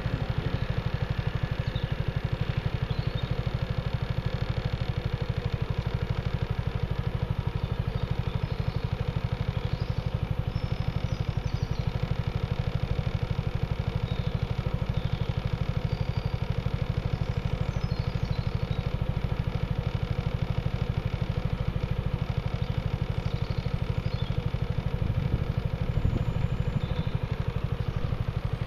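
Motor scooter engine idling steadily close by, with faint bird chirps here and there.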